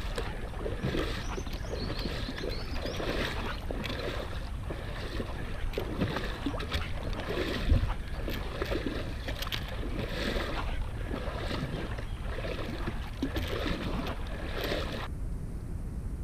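Shallow water sloshing and splashing in irregular strokes around a person wading through a mangrove flat, over a steady low rumble of wind on the microphone. The splashing stops near the end.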